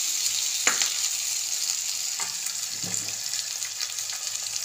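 Chopped tomatoes and crushed shallots sizzling in sesame oil in a clay pot, stirred with a steel ladle that knocks against the pot three times.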